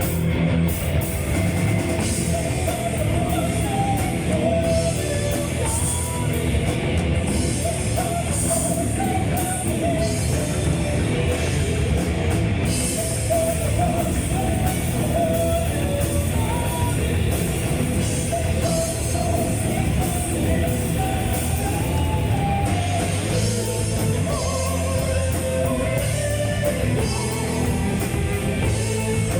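Symphonic metal band playing live: a woman singing over distorted guitars and a drum kit.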